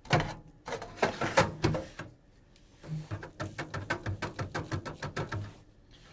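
Clicks and knocks of tools and metal parts handled while an electronics unit is taken apart, then a quick run of rapid clicking, about eight a second, for a couple of seconds.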